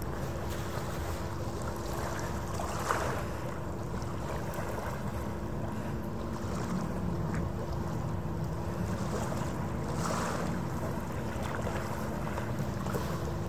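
Harbour ferry engine running as the ferry goes past at a distance: a low, steady rumble with a faint steady hum through it, and two brief faint ticks about three and ten seconds in.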